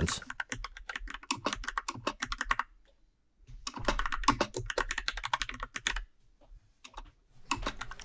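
Fast touch-typing on the Freewrite 3rd Gen smart typewriter's mechanical keyboard: rapid key clicks in two runs broken by a pause about three seconds in, then a few scattered keystrokes near the end.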